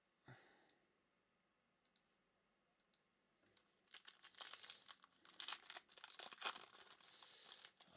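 The foil wrapper of a 2021 Donruss Optic Choice baseball card pack being torn open and crinkled, starting about four seconds in as a dense run of crackles.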